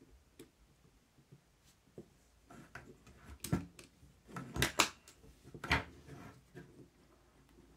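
Small plastic clicks, knocks and rubbing as fingers handle an opened cassette deck mechanism, working a drive belt out from under its circuit board. The sharpest knocks come in a cluster around the middle.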